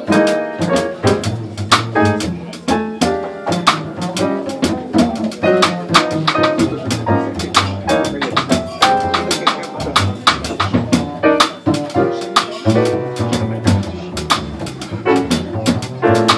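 A jazz quartet of piano, cornet, double bass and drum kit playing live, with the drums keeping busy time through frequent cymbal strokes under a steady bass line.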